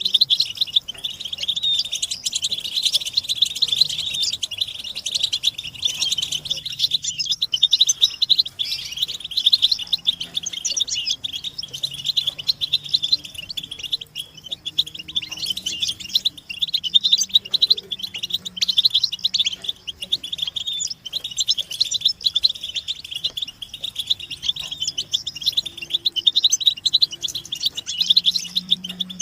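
Several European goldfinches calling and twittering together in a dense, unbroken chatter of fast, high, tinkling notes, the group excitement calls used to stir a silent male goldfinch into song.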